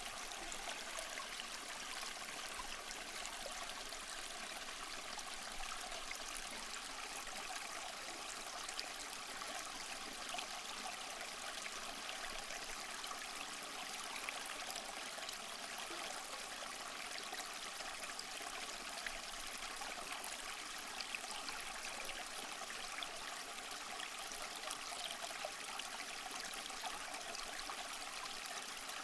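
Small waterfall splashing and trickling steadily over mossy rocks, a constant bright rush of water with little low rumble.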